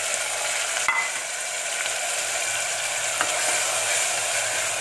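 Onion paste frying in hot oil in a stainless-steel pressure cooker, a steady sizzle as it is stirred with a steel ladle. A light click of the ladle on the pot comes about a second in and again just past three seconds.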